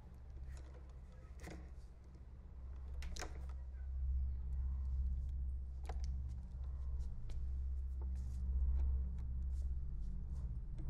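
A low steady drone that swells a few seconds in, under scattered sharp clicks and knocks of a door lock being worked and a door being opened.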